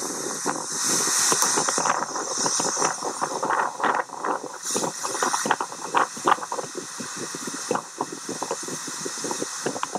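Strong wind gusting against a phone microphone over choppy waves breaking on a sandy shore, with ragged crackles of buffeting. The gusts are loudest in the first few seconds and ease somewhat later on.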